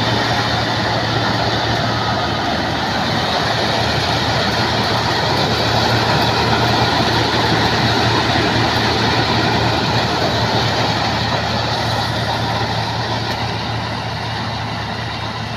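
MCH 2000 PJ Star rice combine harvester running steadily: a constant low engine hum under a dense machinery noise, easing slightly near the end.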